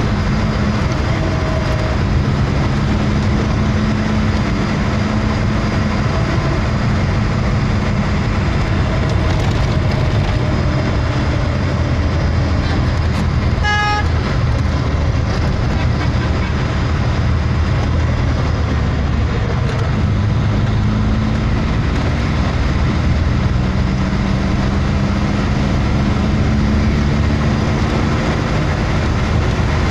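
Steady engine and road noise inside a moving vehicle's cabin, the engine tone rising slowly a few times. A short vehicle horn toots once, about halfway through.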